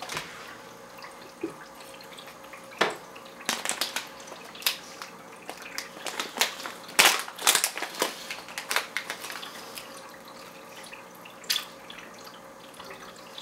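Small irregular splashes and drips at an aquarium's water surface as cichlids snap at floating pellets, a few sharp ones standing out among fainter ones.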